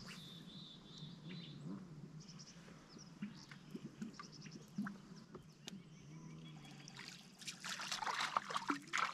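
Water splashing and trickling for about a second and a half near the end, over a steady low hum with small clicks and faint high chirps.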